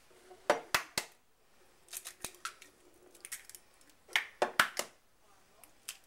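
Two raw eggs cracked one after the other against a glass mixing bowl: a cluster of sharp taps about half a second in, then another cluster about four seconds in as the second shell is broken open.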